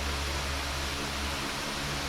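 Steady background hum and hiss with no distinct knocks or clicks, like a running fan or other shop machinery.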